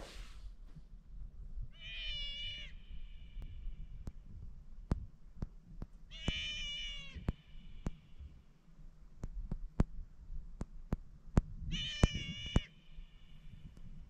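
Sea otter screaming three times, each time a wavering, high-pitched cry about a second long that sounds like a distressed baby crying. It is a disturbance scream aimed at the boat that has just anchored in the otters' kelp patch. Sharp clicks come in between the cries.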